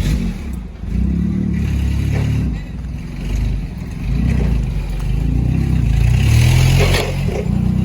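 Ford F250 pickup's diesel engine running, its revs rising and falling.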